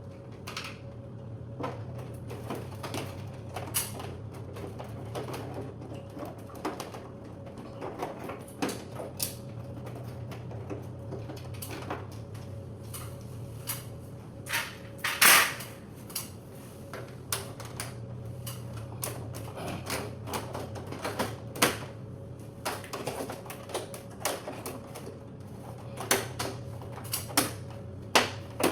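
Irregular light clicks, taps and small knocks from the parts of an air conditioner's control panel being handled during repair, with one louder knock about 15 seconds in, over a steady low hum.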